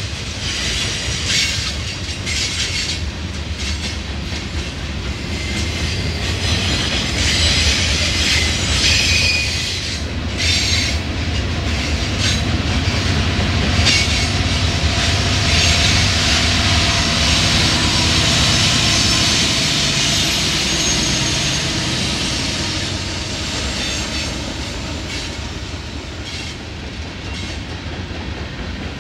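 Mixed freight train cars rolling past close by: a steady rumble of steel wheels on rail, with clicking over the rail joints and occasional high wheel squeal.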